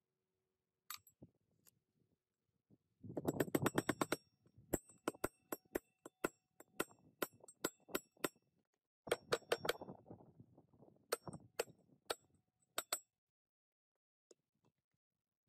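Hammer blows on a metal drift seating a wheel bearing into a minibike wheel hub: sharp, ringing metallic taps, in quick runs and slower single blows, stopping a couple of seconds before the end.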